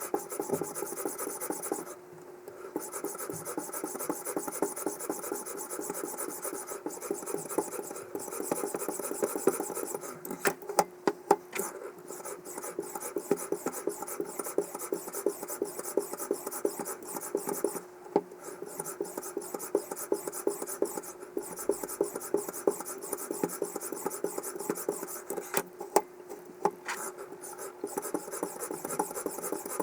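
Abrasive whetstone on a guided knife sharpener's arm stroked rapidly back and forth along a steel knife edge, a continuous rasping with brief pauses and a few sharp clicks now and then.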